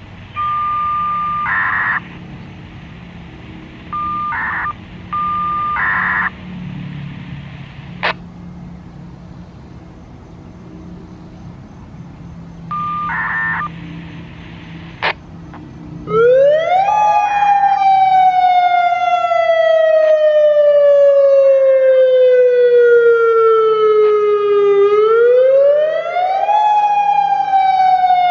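Federal Signal Modulator electronic outdoor warning siren starting its wail test cycle about halfway through: a quick rise in pitch, a slow fall over several seconds, then a second quick rise and fall. Before it, a few short electronic beep bursts and clicks.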